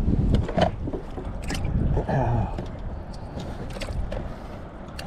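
A run of knocks, clicks and rattles of gear being handled on a kayak.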